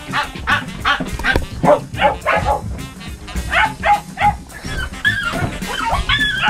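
Dogs barking and yipping in quick succession, two or three barks a second, over background music.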